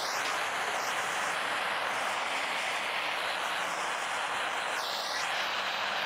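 Handheld butane cartridge gas torch burning with a steady hiss as its flame chars the face of a pine block.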